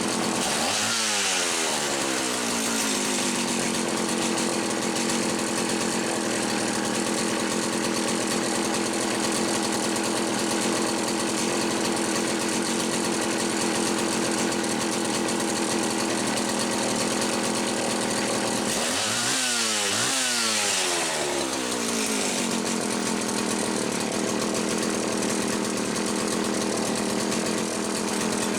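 Homelite 360 two-stroke chainsaw running steadily on the bench, throttled up briefly twice: about a second in and again about twenty seconds in, each time revving up and dropping back. It runs consistently with its carburetor intake bushing properly seated, the misaligned bushing having sucked air and starved it of fuel.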